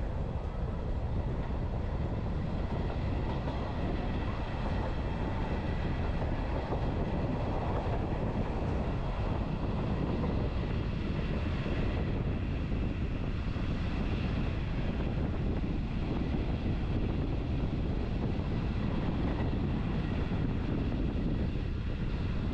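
Electric metre-gauge train of the Lucerne–Engelberg line heard from on board as it runs out of a station: a steady low rumble of wheels and running gear with faint steady tones above it.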